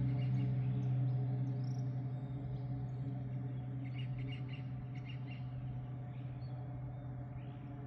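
Cessna 210L Centurion's six-cylinder piston engine and propeller droning steadily after takeoff, slowly fading as the aircraft climbs away. A few bird chirps come through around the middle.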